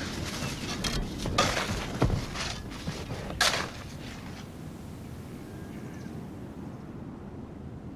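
Steady low outdoor ambience, like wind, with a cluster of short sharp sounds in the first half, the loudest about a second and a half, two and three and a half seconds in; after that only the steady ambience.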